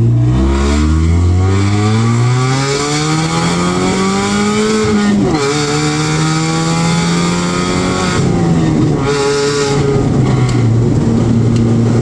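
Supercharged R53 Mini Cooper S four-cylinder exhaust through a Flowmaster Super 10 muffler, with the cat and resonator removed, heard from inside the cabin with a window half down. The engine pulls up through a gear with rising pitch, drops sharply at a gear shift about five seconds in, climbs again, then eases off and cruises steadily. Acceleration is slow because the car is running in limp mode from vacuum leaks.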